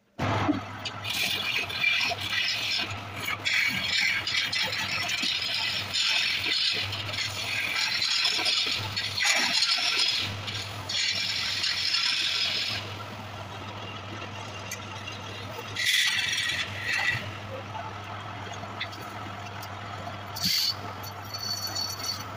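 Wood lathe running with a steady motor hum while a turning tool cuts into the spinning wood. The cutting makes a scraping hiss in long passes through the first half, then only a few short cuts.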